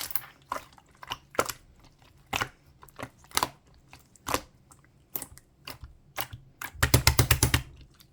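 Clear slime being pressed and worked by hand, giving sharp clicking pops about once a second, then a fast run of about ten pops near the end.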